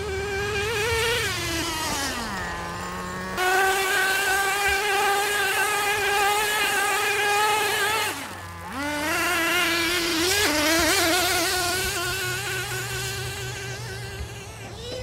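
Traxxas Nitro Slash 2WD RC truck's small two-stroke nitro engine buzzing at high revs. It drops toward idle about two seconds in, jumps abruptly back to full revs and holds, dips off the throttle again briefly around eight seconds in, then winds back up and stays high.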